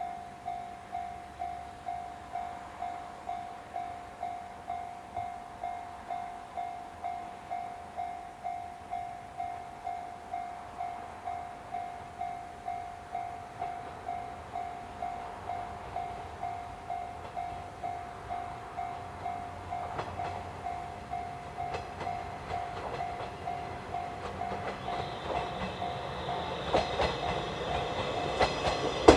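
Railway level-crossing alarm ringing a steady, evenly repeated ding, nearly two strokes a second, as a JR 115 series electric train approaches. Over the last several seconds the train's running noise and the click of its wheels over the rail joints build up and drown the bell.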